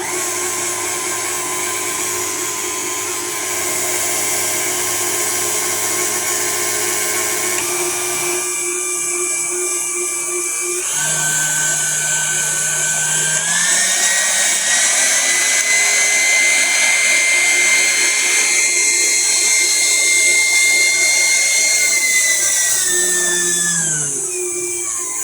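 KitchenAid Artisan stand mixer's motor running, now turning normally with a replaced bushing and lock washer. Its whine steps up in speed several times, holds, then slows down near the end.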